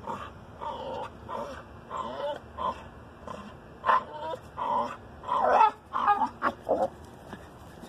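Bulldog whining: a series of short, high-pitched whines, growing louder and coming closer together about five seconds in.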